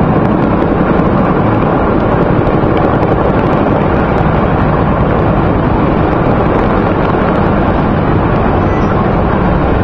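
A group of helicopters flying overhead: a loud, steady drone of rotors and engines.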